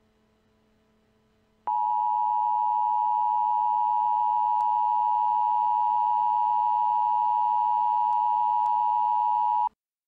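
Emergency Alert System attention signal: one loud steady tone that starts abruptly about two seconds in, holds for about eight seconds and cuts off suddenly just before the end.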